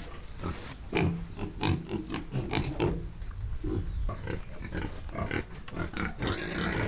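Pigs grunting, a quick irregular run of short grunts one after another.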